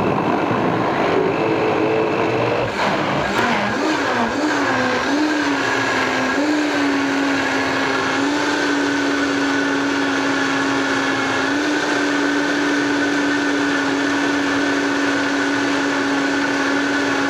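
Countertop blender motor running and churning a thick load of frozen fruit and vegetables into a smoothie. Its whine wavers in pitch for the first few seconds while the blades catch the frozen mix at the bottom, then holds steady.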